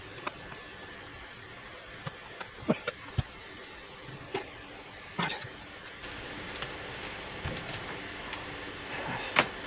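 Irregular light clicks and taps as small parts of a Nakamichi 1000ZXL cassette deck's front panel are handled and fitted together, about a dozen separate knocks with the sharpest near the end.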